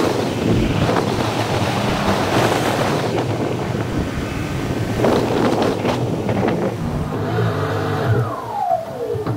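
A car driving, heard from a camera mounted outside on the hood: steady wind noise on the microphone over road and engine noise, with a brief falling whine near the end.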